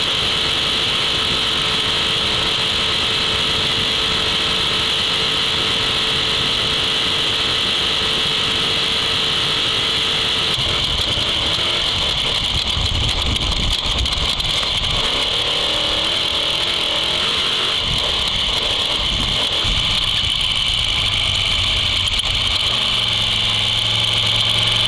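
Trophy truck's race engine running hard, with tyre and wind noise, heard from an onboard camera. The engine pitch wavers up and down partway through, then settles into a steady, even note near the end.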